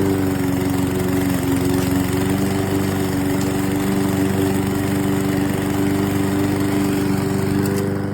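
Small 144cc OHV gas push-mower engine running at a steady speed, easing off slightly near the end.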